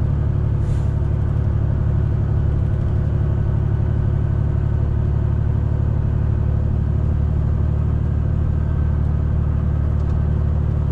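Truck's turbocharged diesel engine working hard under load, with the turbo at nearly full boost. It runs as a steady low drone with no change in pitch or level.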